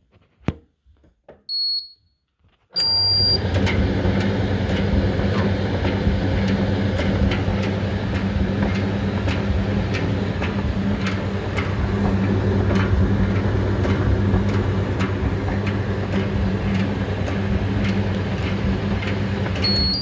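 Hoover tumble dryer starting up after a short control-panel beep: the drum motor hums steadily while light knocks clatter irregularly as something loose is thrown back and forth inside the turning drum, which the owner traces to a loose object in one of the drum's hollow cavities. Another beep near the end.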